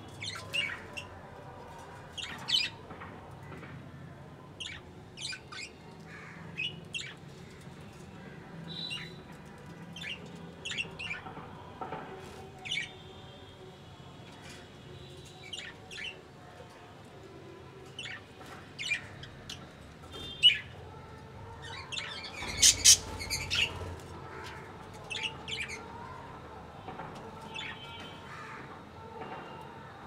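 Budgerigars chirping and squawking in short calls scattered all through, with a louder, noisier flurry about three-quarters of the way through.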